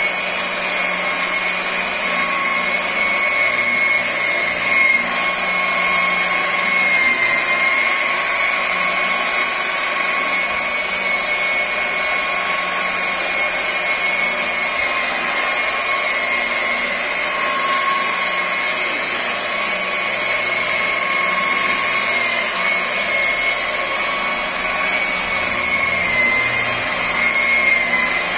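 Electric rotary polisher with a foam pad running against a car's painted door panel: a steady high whine whose pitch wavers slightly now and then.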